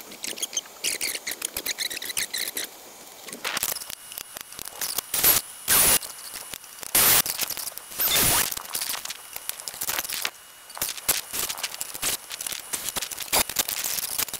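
Kobalt 24V brushless cordless drill run in several short bursts, drilling through thin aluminium sheet, with many clicks and knocks of handling in between.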